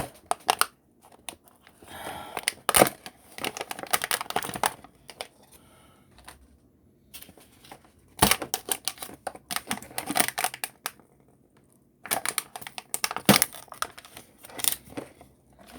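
Two Pringles cans being opened and handled: plastic lids pried off and foil seals peeled back, heard as several bursts of sharp clicks, crackles and tearing with short pauses between them.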